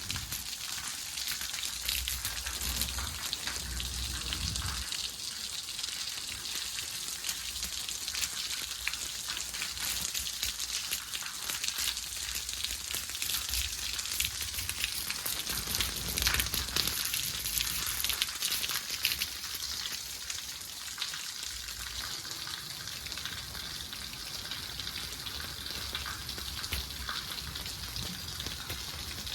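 Heavy rain falling: a dense, steady hiss of countless drops striking surfaces.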